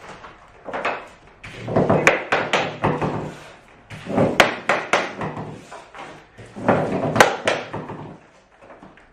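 A tapping block struck against the edge of a cork floor plank, in several clusters of sharp knocks, driving the plank's joint tight against its neighbour.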